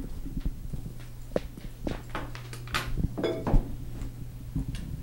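Handling noise from a corded handheld microphone as it is passed from hand to hand and set down: scattered soft knocks, rubs and clicks over a steady low hum.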